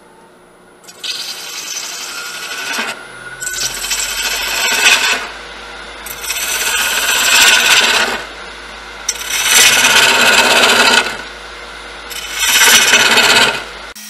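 Hollowing tool cutting into a bowl blank spinning on a wood lathe: a loud rasping scrape in five passes of one and a half to two seconds each, with the lathe running more quietly in the gaps between.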